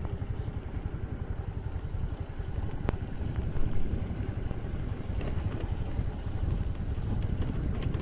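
Wind buffeting the phone's microphone: a dense, fluttering low rumble, with a single sharp click about three seconds in.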